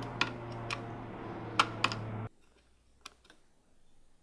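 Sharp clicks and taps of a wireless microphone receiver's 1/4-inch plug being pushed into an audio interface's input jack, over a steady low hum. The hum stops abruptly about two seconds in, leaving a couple of faint clicks.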